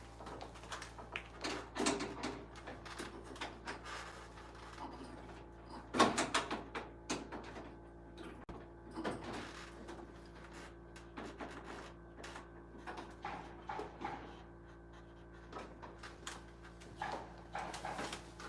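Irregular clicks, knocks and rustles of hand tools and wires being worked inside a metal electrical panel, with the sharpest knock about six seconds in.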